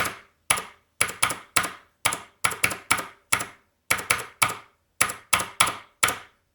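Cherry MX Blue clicky mechanical keyboard switch on a switch tester, pressed and released over and over, giving a sharp click with each stroke, about three clicks a second, often in close pairs.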